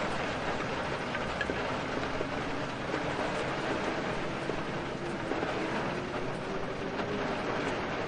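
Steady rain falling, an even hiss, with a faint tone slowly rising in pitch through the middle.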